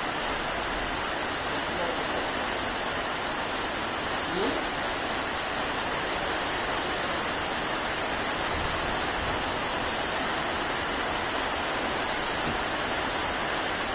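Steady rain falling on leafy trees and broad banana leaves, an even hiss of drops that does not let up.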